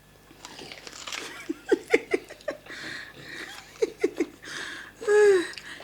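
Person laughing: two runs of short, breathy ha-ha pulses, about a second and a half and four seconds in, with a longer drawn-out vocal sound near the end.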